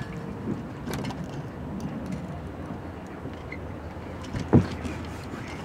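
Gamefisher outboard motor running with a steady low hum, with one sharp knock about four and a half seconds in.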